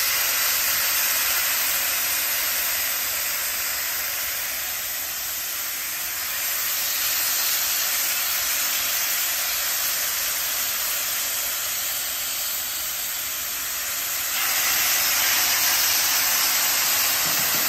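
Marinated lamb sirloin sizzling steadily on a hot Pit Boss flat-top griddle, the oily wet marinade hissing and steaming on the steel. The sizzle grows louder about fourteen seconds in as another piece of meat goes down.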